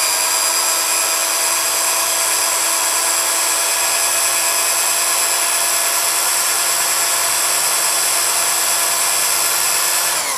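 Electric drill spinning an electric power-steering motor armature at a steady whine while a flat file is held against the copper commutator, rasping it clean of pitting. The drill begins to slow down at the very end.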